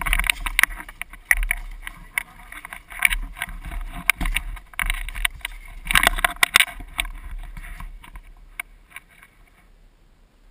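Rustling and irregular knocks picked up by a gun-mounted camera as it is handled and carried, busiest in the first eight seconds and dying away near the end.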